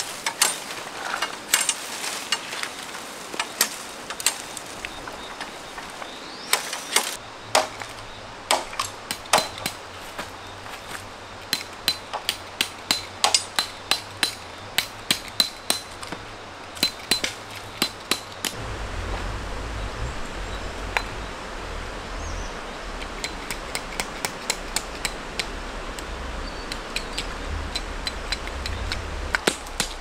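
Tent stakes being hammered into stony riverbed ground: a long run of sharp knocks and clinks, several a second at times, thinning out after the middle.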